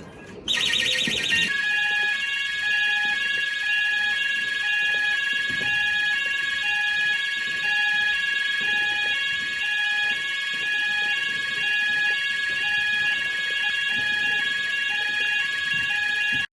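Several electronic fire alarm sounders going off together. A brief rapid warble gives way to one steady high tone mixed with pulsing tones that repeat about twice a second. The sound cuts off suddenly near the end.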